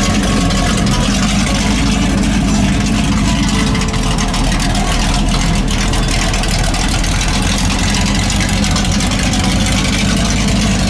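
Engine of a lifted Chevrolet Chevelle on oversized off-road tires, running steadily with a deep, low sound as the car drives slowly past.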